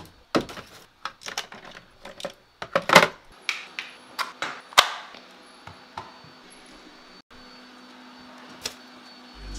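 Household handling sounds: a string of sharp clicks and knocks as a cabinet door and small plastic air-freshener parts are handled on a kitchen counter. A low steady hum comes in for the last couple of seconds.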